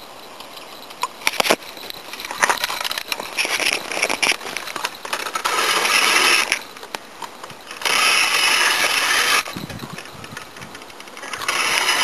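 Rustling and handling noise: hissy bursts of rustle that start and stop abruptly, with a few clicks, as a hand-held camera is moved close to bankside grass and reeds.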